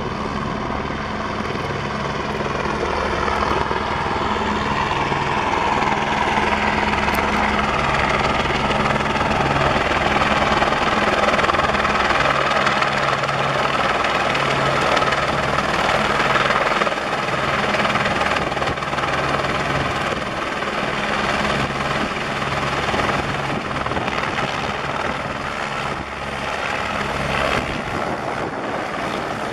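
Several Airbus AS350 B3 Écureuil (H125) single-turbine helicopters flying low and hovering, their main rotors and turbines running steadily. The sound grows louder toward the middle and eases off a little near the end.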